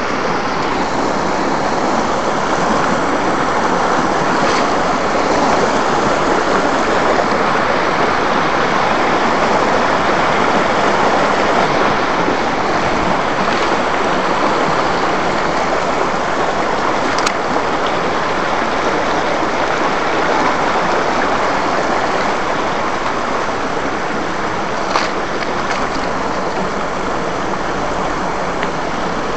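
A rocky mountain stream rushing and pouring over boulders in a steady, loud rush of water. There are two faint clicks, one past the middle and one near the end.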